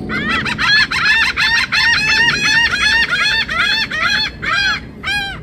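Laughing gulls calling: a rapid run of short, arched, puppy-like calls, about five a second, that slows and breaks into separate calls toward the end.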